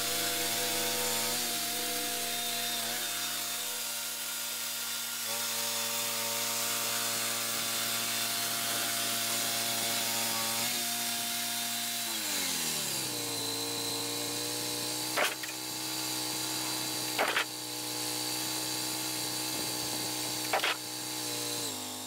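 Wood-Mizer LT-40 portable band sawmill running, its engine humming steadily while the blade saws through a white oak cant with a steady hiss. About twelve seconds in, the engine pitch slides down and settles lower, and a few sharp clicks follow near the end.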